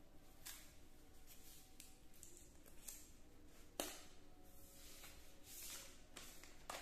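Faint handling noise of a smartphone and its cardboard packaging: light rustles and scrapes as the phone is moved against its card sleeve and box, with a sharper tap a little under four seconds in and another near the end.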